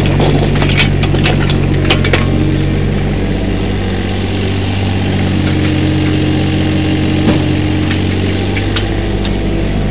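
Hitachi 30Z mini excavator's diesel engine running steadily under hydraulic load as the machine slews. A few sharp knocks and scrapes of the bucket on stony ground come in the first two seconds.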